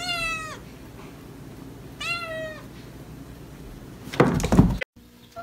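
A cat meowing twice, two short meows about two seconds apart, each sliding slightly down in pitch, then a dull thud about four seconds in.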